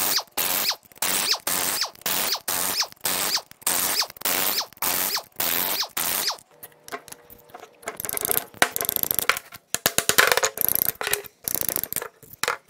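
Ratchet loosening the main-cap bolts on a Toyota 1FZ-FE engine block, clicking in quick, even strokes about two or three a second. About six seconds in the ratcheting stops, and loose metal parts clink and rattle.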